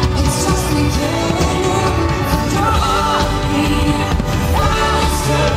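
Fireworks show soundtrack: a song with a singing voice over a steady low beat.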